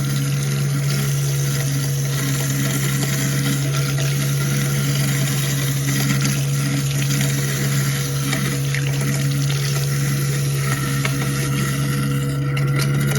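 American Standard 1 1/4 HP garbage disposal running with a steady motor hum, water running, as it grinds down a tightly packed load of old food. Near the end the grinding noise thins out as the chamber clears.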